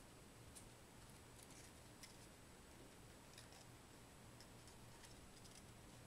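Near silence with faint, irregular small clicks and crinkles from folded paper being handled.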